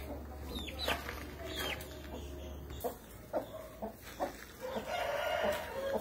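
Parrot-beak long-tail aseel chickens calling. Chicks give high, falling cheeps in the first two seconds, short clucks follow from about three seconds in, and a longer held call of about a second comes near the end.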